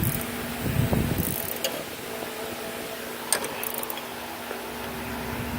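A wrench working the nut on a front shock absorber's stud: low knocks of the tool in the first second or so and one sharp metallic click about a third of the way in, over a steady hum.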